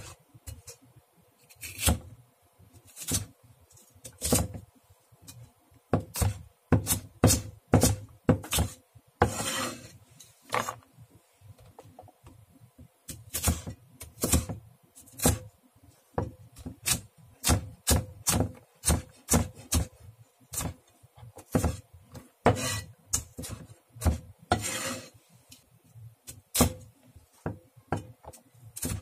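Large kitchen knife chopping chilli peppers on an end-grain wooden cutting board: sharp knocks of the blade on the wood, sometimes in quick runs of several a second, with two longer, noisier strokes about ten seconds in and near the end.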